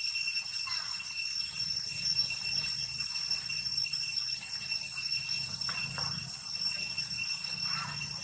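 Steady high-pitched insect drone with no break, with a few brief faint squeaks about a second in, near six seconds and near the end.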